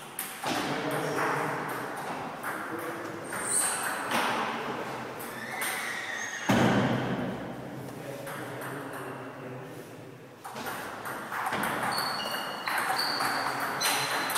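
Table tennis balls clicking off bats and tables in irregular rallies, from several tables playing at once in a sports hall.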